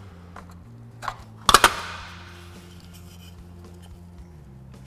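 The Nissan emblem's plastic locking tabs snapping free of the plastic grille as it is pried out with a flat-blade screwdriver: a small click about a second in, then a sharp double snap half a second later as the emblem comes loose.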